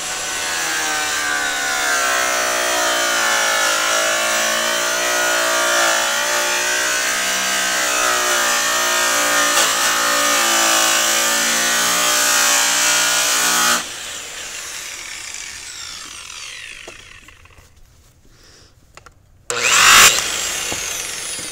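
Makita GA7021 angle grinder polishing bare aluminum trailer panel, the motor running steadily with its pitch wavering under load. About fourteen seconds in it stops and winds down with a falling whine, and near the end it is briefly triggered again and released.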